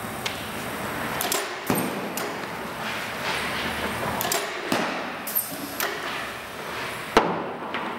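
Hockey pucks being shot and striking a goaltender's pads and stick: about five sharp cracks, the loudest near the end, with scraping on the synthetic ice between them.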